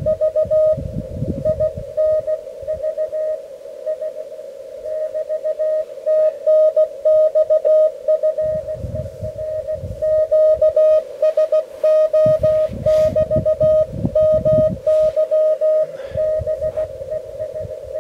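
Morse code (CW) tone from a portable amateur radio transceiver: a single steady beep switched on and off in quick dots and dashes, with short gaps. Low rumbling gusts of wind on the microphone come and go underneath.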